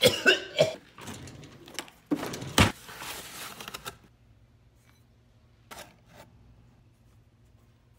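A flour bag being opened and handled: rustling and crinkling with a few sharp knocks over the first four seconds. After that it is mostly quiet, with a low steady hum and two faint clicks.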